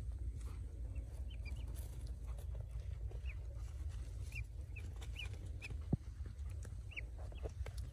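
Newly hatched ducklings peeping: scattered short, high chirps over a steady low rumble, with a single sharp knock about six seconds in.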